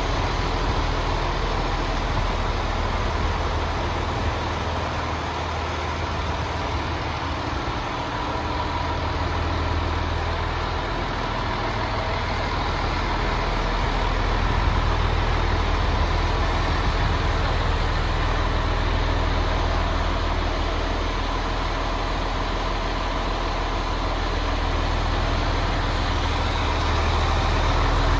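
Diesel engine of a MAN TGX 26.480 tractor unit, a 480 bhp common-rail Euro 6 engine, idling steadily with a low, even rumble.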